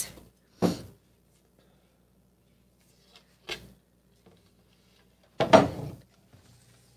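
A wooden art panel set down on a tabletop with a couple of short knocks, then one loud sneeze about five and a half seconds in.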